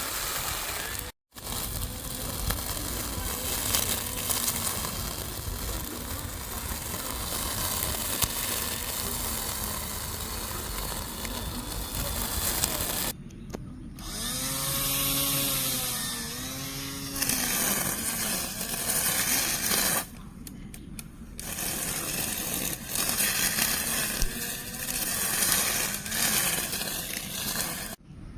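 Small lawn mower's motor and blade whirring as it cuts, in several short takes spliced together with abrupt cuts. Twice in the middle the motor's pitch dips and recovers, as it bogs under load and spins back up.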